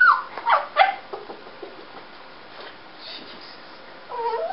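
A dog making short whining noises: a few in the first second, then a quieter stretch, then one more near the end.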